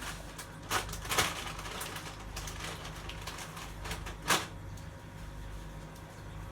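A few short, light knocks and clicks of household items being handled: three of them, about a second in and again past four seconds in, over a faint steady room hum.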